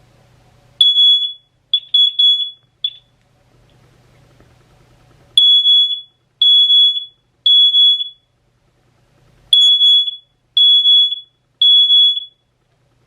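Siemens fire alarm horn sounding a high, piercing electronic tone in the temporal-three evacuation pattern: three half-second beeps, a pause, then three more. It opens with a few broken, uneven beeps before the pattern settles.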